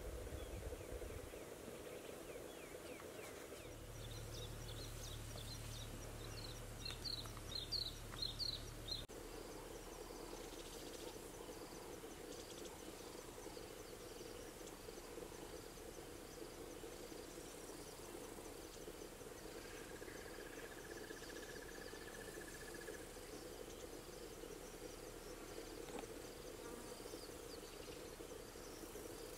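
Dusk bush ambience: a steady chorus of frogs and insects with a fast high cricket-like pulsing. A few sharp bird chirps come about seven to nine seconds in over a low hum, and a short trill sounds around twenty seconds in.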